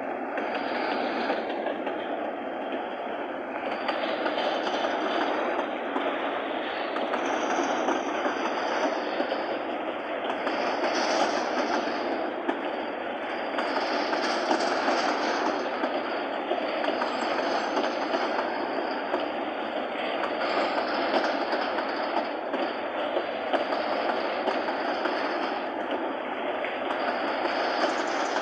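Freight train wagons rolling past on the track, a steady rumble with wheel clatter.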